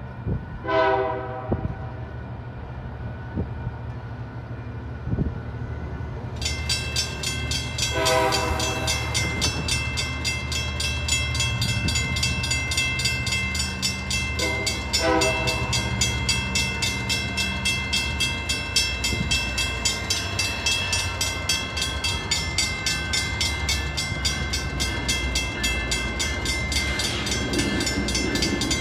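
Train horn blowing in separate blasts: a short one about a second in, a longer one about eight seconds in, and two short ones close together around fifteen seconds in. About six seconds in, a railroad crossing's warning bell starts ringing in a rapid, even rhythm and keeps ringing, signalling the approaching train.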